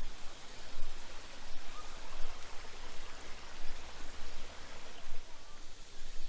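A small brook babbling steadily, water running over stones.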